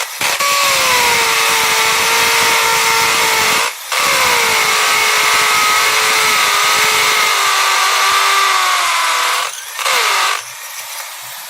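Electric drill motor running at full speed in long stretches, with brief stops a few seconds in and near the end, where it is let off and winds down.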